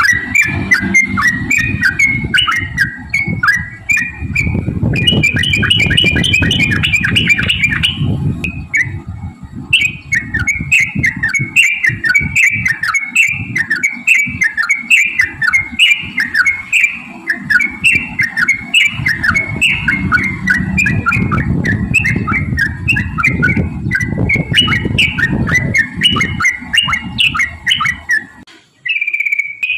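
Yellow-vented bulbul (trucukan) singing a long rolling song of quick, bubbly repeated notes, about two a second, that stops shortly before the end. A low rumbling noise sits under the song for stretches.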